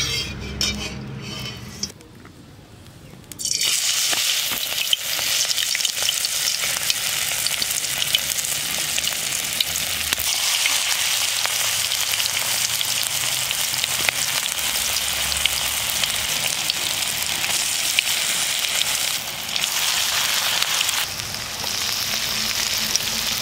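Neem-flower rice-batter fritters frying in hot oil in a kadai: a steady sizzle full of small sharp pops. It starts about three and a half seconds in, after a brief quieter spell.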